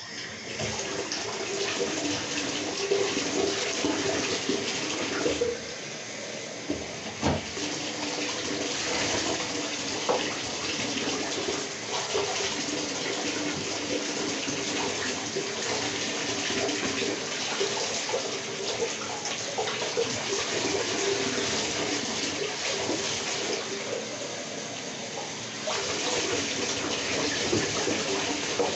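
Bathtub tap running steadily into the tub, with water scooped in a plastic cup and poured over a wet dog to rinse her.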